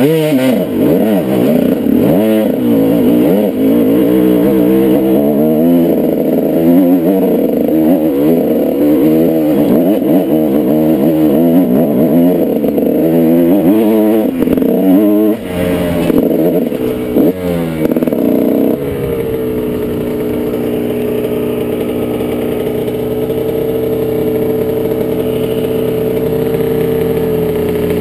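Two-stroke dirt bike engine revving up and down as it is ridden on a trail, then settling to a steady note about nineteen seconds in.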